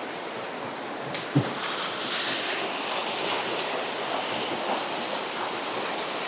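A creek running high, its water rushing steadily. One brief thump about a second and a half in.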